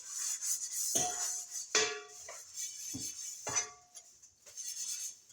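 Kitchenware knocking and clinking while being washed up, about four sharp knocks, three of them leaving a short metallic ring.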